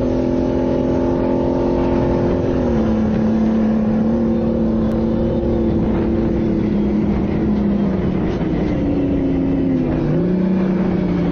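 M113 armored personnel carrier's engine running loudly with a steady drone, dropping in pitch about a quarter of the way through, then dipping and falling lower near the end before rising again.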